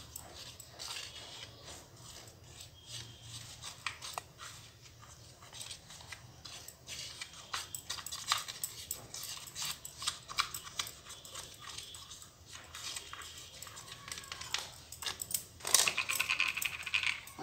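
Scattered light clicks and taps from hand work with kitchen things, with a louder clattering near the end.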